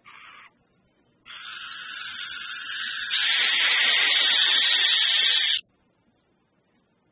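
Burrowing owl giving a harsh, hissing rasp as a defensive call against an intruder at the burrow: a short burst at the start, then a longer rasp from about a second in that grows louder halfway through and cuts off suddenly.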